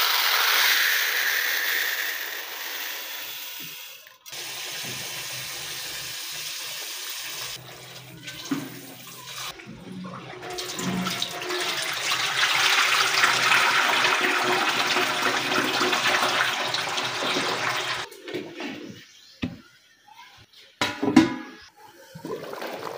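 Dry long-grain rice poured into a plastic tub, a steady hiss of falling grains, then water sloshing as the rice is rinsed and the cloudy rinse water is poured off into a steel sink in a long splashing stream. A few knocks near the end, the loudest a sharp one.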